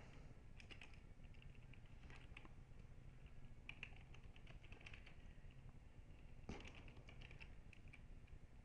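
Faint typing on a computer keyboard: scattered keystrokes in short runs with pauses between.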